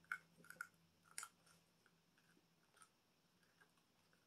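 Faint crunching of a hard freeze-dried mango piece being bitten and chewed: a few sharp crunches in the first second and a half and one more near three seconds. The dried fruit is too hard to chew up.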